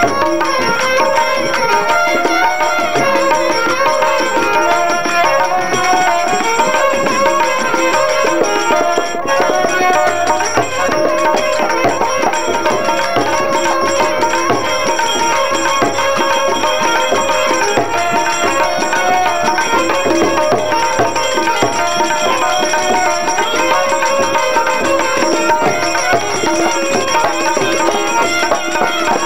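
Instrumental shaan in Raag Basant: a violin plays the melody over harmoniums, with tabla keeping a steady rhythm.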